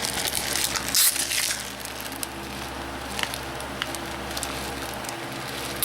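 Plastic crackling and clicking as a Blu-ray case is handled and opened, with a louder crackle about a second in, over a steady electrical hum.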